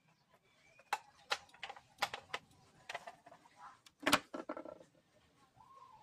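About a dozen irregular sharp clicks and knocks from small hand work, the loudest about four seconds in. Near the end comes a short animal call that rises then falls in pitch.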